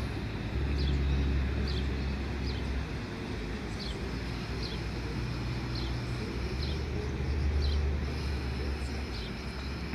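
Double-deck S-set electric train standing at the platform, a steady low hum from its onboard equipment. Faint short high chirps repeat about once a second over it.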